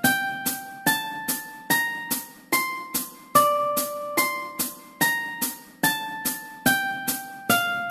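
Mandolin playing a slow single-note exercise melody, one plucked note every two beats, climbing over the first few seconds and then stepping back down. A steady percussion click marks each beat.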